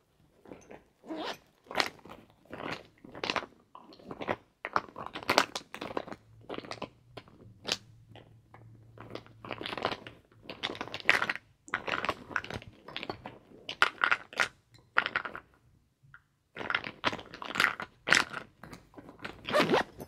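A handbag being handled: a run of short, irregular rustling and crunching noises from its material, with a brief pause a little past the three-quarter mark.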